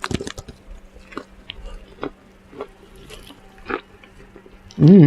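Soft scattered clicks and crackles of a piece of KFC fried chicken being handled and picked at. Near the end a short, loud hummed voice sound whose pitch rises and falls twice.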